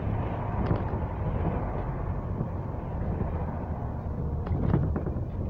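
Steady low engine and road rumble inside a moving double-decker bus, heard from the upper deck, with a few sharp rattles or knocks about four and a half seconds in.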